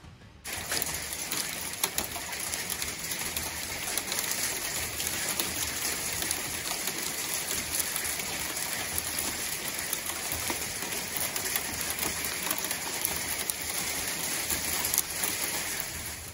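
Small ice pellets falling on a truck's metal hood and on the ground, making a dense, steady hiss of tiny ticks. It starts suddenly about half a second in.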